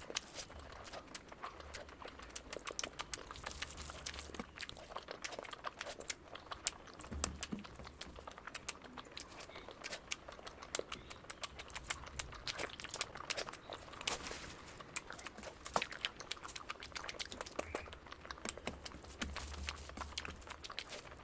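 Close-up eating sounds of mutton fat curry with rice: chewing, with irregular wet mouth clicks and smacks throughout.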